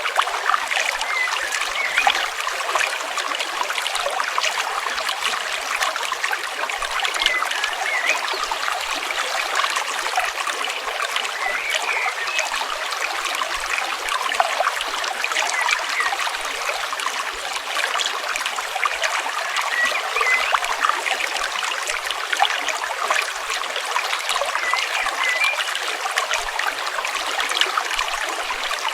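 Stream water flowing and trickling steadily, with many small splashes.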